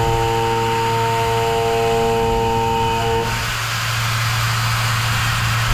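CNC milling machine cutting a metal part with a Core 6 end mill: a steady machining whine of several held pitches over a low hum and a hiss. The pitched whine stops about three seconds in, leaving the hum and hiss.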